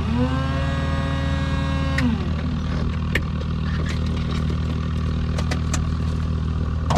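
Electric fuel boost pump on a Beechcraft Bonanza running to prime the engine before start: a whine that spins up, holds for about two seconds, then winds down. A steady low hum runs underneath, and a few clicks follow.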